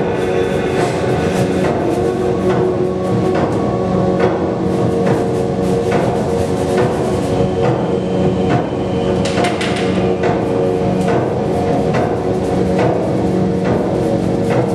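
Background music: held notes with a scattering of percussive knocks.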